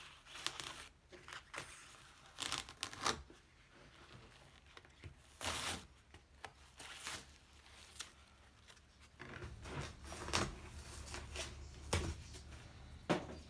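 Small hand saw cutting through expanding spray foam that has set but is still a little sticky, in uneven strokes with short pauses between them.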